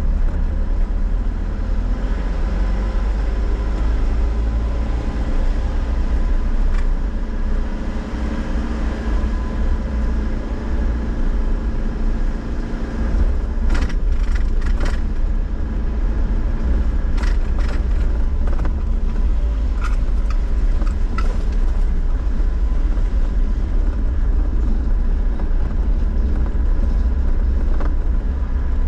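A car driving, heard from inside the cabin: steady low engine and road rumble, with a cluster of short knocks or rattles about halfway through.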